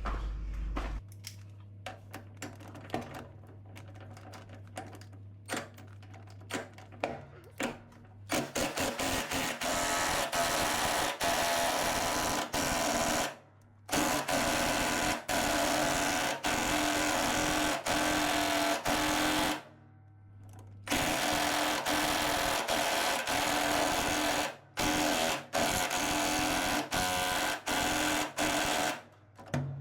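Impact wrench hammering a threaded ball joint into the front suspension of a 1969 Plymouth Fury III. A few faint clicks come first, then about eight seconds in the wrench starts in long rapid runs, stopping briefly a few times.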